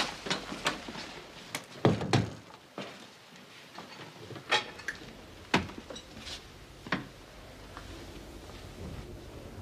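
Hurried footsteps and a door swinging shut with two heavy thuds about two seconds in, followed by a few separate clicks and knocks, as of a door latch and handle.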